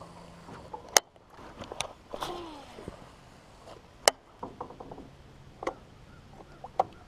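Baitcasting reel being cast and worked: a handful of sharp clicks, a short whir falling in pitch a little after two seconds, and small quick ticks from the reel.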